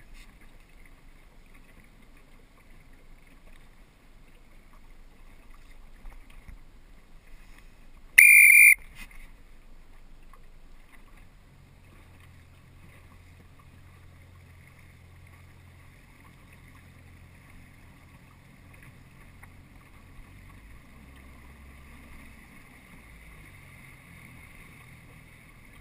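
Faint, steady running of the inflatable coach boat's motor, its low drone shifting pitch slightly about three-quarters of the way through. About eight seconds in there is one loud, brief, shrill tone.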